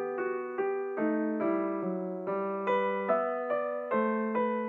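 Background music: a piano-like keyboard playing a gentle melody of evenly paced notes, one about every half second.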